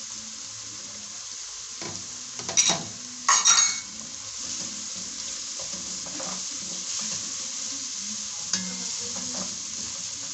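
Grated carrots sizzling in hot oil with fried onions and tomato paste in a pan as they are stirred in, a steady frying hiss. A few loud scrapes or knocks come about two and a half to three and a half seconds in.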